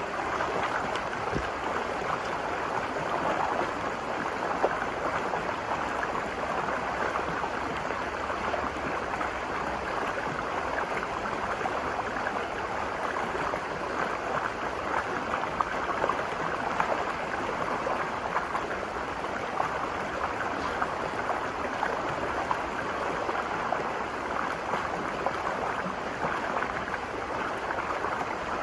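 Virgin River flowing over rocks: a steady rush of running water with small irregular splashes and gurgles.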